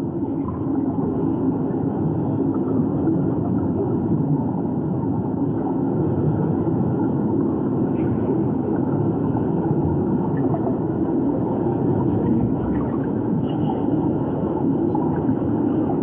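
Steady, muffled underwater ambience: a low, even rumble of moving water as heard underwater.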